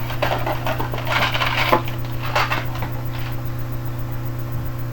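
Crackly rustling of packaging and small items being handled and rummaged through in a box, with a few sharp clicks; it dies down over the last second and a half. A steady low electrical hum runs underneath.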